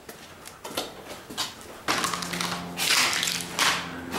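Footsteps crunching on debris-strewn floor, a few sharp crackles about half a second apart; about halfway in, background music with steady held low notes starts, with rushes of noise over it.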